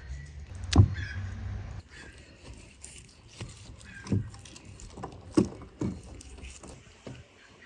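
Kitchen knife slicing raw meat on a wooden cutting board, with a low rumble for the first two seconds and a loud knock about a second in, then a few sharper knocks of the blade and meat against the board among soft cutting sounds.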